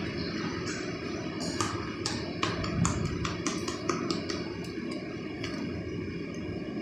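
A 60×60 cm ceramic floor tile being patted down by hand to seat it in its mortar bed: a quick run of about a dozen sharp taps from about one and a half seconds in until about five and a half seconds, over a steady low background rumble.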